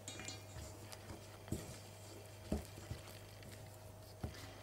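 A plastic spatula stirring flour, olive oil and water into a dough in a stainless steel bowl: quiet scraping with several soft knocks against the bowl.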